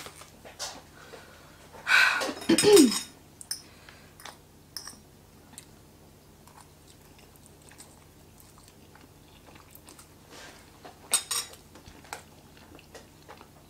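A person eating noodles with a fork: chewing, with short loud eating noises about two seconds in and again about eleven seconds in.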